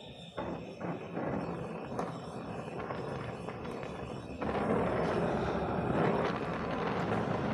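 Oxy-acetylene welding torch flame running steadily, with a rushing hiss, as it fusion-welds copper sheet. It gets louder about halfway through.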